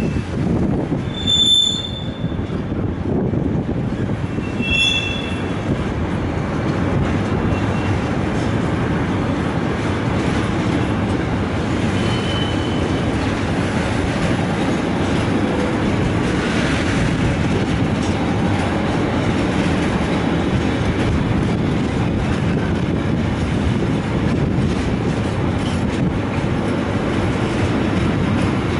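Container wagons of an intermodal freight train rolling past: a steady rumble of wheels on the rails, with short high-pitched wheel squeals about a second in and again near five seconds.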